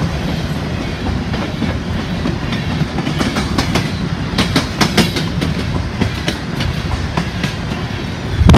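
Norfolk Southern covered hopper cars of a grain train rolling past close by: a steady low rumble of steel wheels, with quick groups of clicks as the wheel sets cross rail joints, thickest in the middle.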